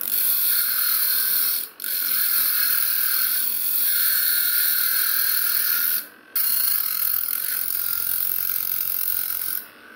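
Homemade 775 DC-motor angle grinder's abrasive disc grinding the edge of a rusty scissor blade to sharpen it: a loud, steady rasping hiss. It breaks off briefly twice, about two seconds and six seconds in, as the blade leaves the disc, and stops near the end.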